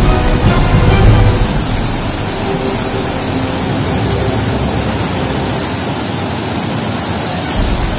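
Flash floodwater rushing down a wadi, a loud steady rush of water.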